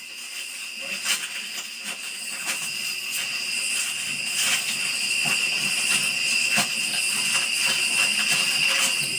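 Steady high-pitched chorus of night insects over a hiss, with scattered faint clicks.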